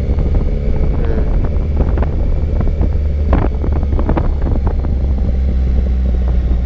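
Motorcycle on the move: wind buffeting the microphone as a steady low rumble, with scattered short knocks and the engine running underneath.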